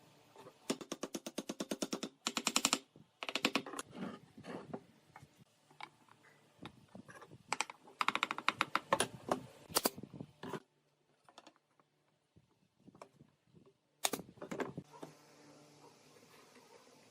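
Several bursts of rapid, evenly spaced clicking, like a fast ratchet or clutch, with short pauses between the bursts.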